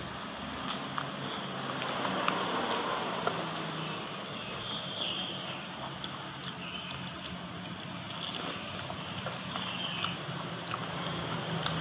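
Steady background noise with a low hum, broken by scattered small clicks and a few short high chirps.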